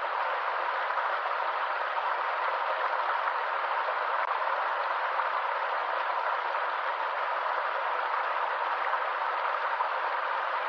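Stream water rushing over a small waterfall: a steady, even hiss with no low rumble.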